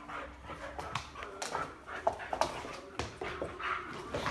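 Rhodesian Ridgeback playing, giving short whimpers and yips, with scattered clicks and scuffling throughout.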